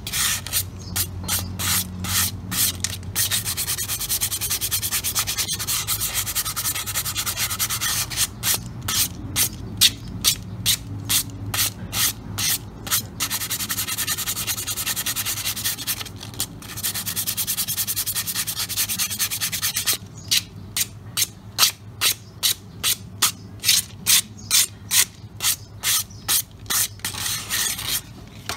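Sandpaper rubbed back and forth over the lining of a motorcycle drum-brake shoe still fitted on the bike, scuffing off the burnt black outer layer of a shoe that slips and squeals. The scraping strokes run steadily and are most distinct, about two a second, over the last several seconds.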